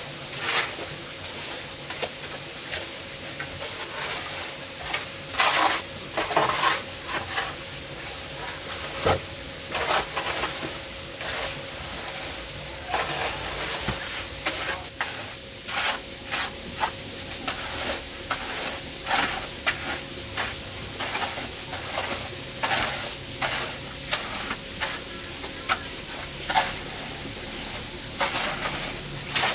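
Trowel scraping and slapping through wet cement mortar as it is spread and levelled over a floor, in many irregular short strokes.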